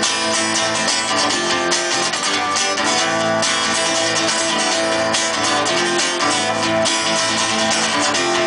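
Acoustic guitar strummed steadily in an instrumental break, with no singing.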